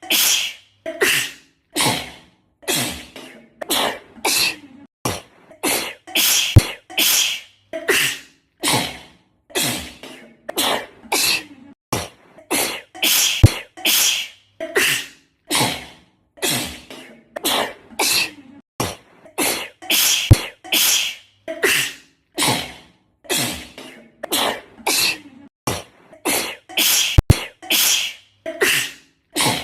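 A girl sneezing over and over in a sneezing fit, about one sneeze a second. A sharp click cuts in about every seven seconds.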